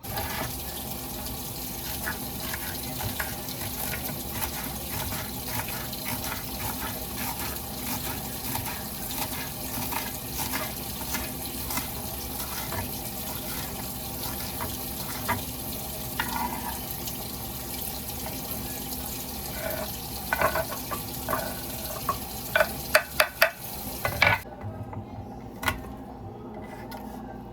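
Water running steadily from a kitchen tap into a sink, with a quick run of sharp clinks about 20 seconds in. It stops suddenly a few seconds before the end.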